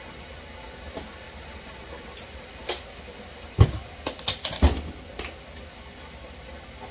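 Kitchen items being handled and set down at the counter, likely a cottage cheese tub and a measuring cup: a quick cluster of clicks and light knocks about two to five seconds in, with two dull thuds among them.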